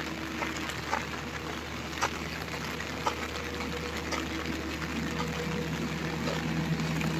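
Rain falling, a steady hiss with scattered drips and splashes about once a second, over a low steady hum.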